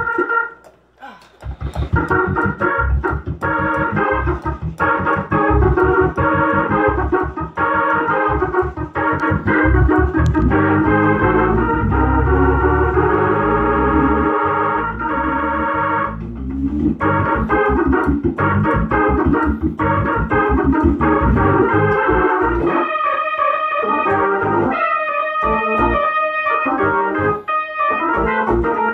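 Two-manual electric console organ played fast with both hands: dense chords over a busy, quick-moving bass line. The sound drops out briefly about a second in, and in the last few seconds the bass thins out, leaving choppy chords higher up.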